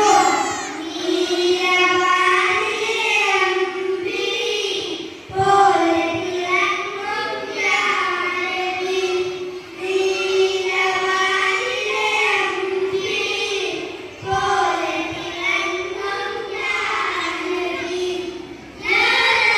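A child singing a song in high, sustained phrases of about four to five seconds each, with brief pauses for breath between them.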